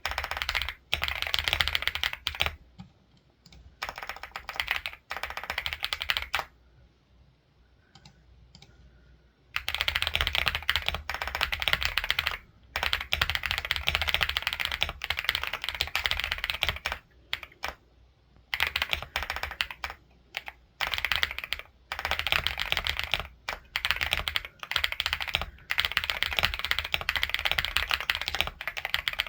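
Rapid typing on a computer keyboard, keys clattering in quick runs with short pauses between them and one longer pause about a quarter of the way through.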